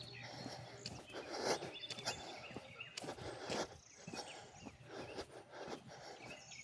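Faint footsteps of a person walking, a step about every half second, over quiet outdoor ambience.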